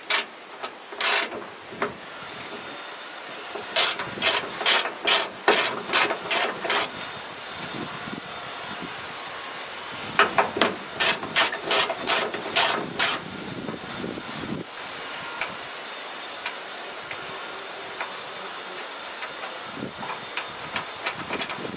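Hand ratchet with a 12 mm socket clicking as it is worked back and forth to undo bolts, in two spells of quick strokes about two a second, with a steady hiss underneath.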